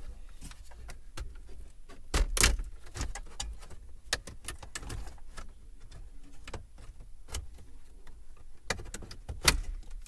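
Plastic clicks, knocks and rattles as a trim tool pries the center dash bezel and radio unit of a 2013 Ford Escape loose, with louder knocks about two seconds in and again near the end.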